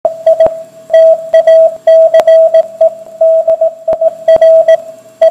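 Morse code: a single steady mid-pitched beep keyed on and off in short and long pulses, dots and dashes, like a radio telegraphy signal. A few sharp crackles break through it.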